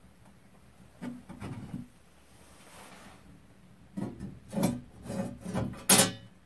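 A stick of firewood scraped into the firebox of a small sheet-metal wood stove, then a loose metal plate scraped and knocked into place over the firebox opening as a makeshift door. A brief scrape about a second in, then a run of scrapes from about four seconds, ending in a sharp knock, the loudest sound.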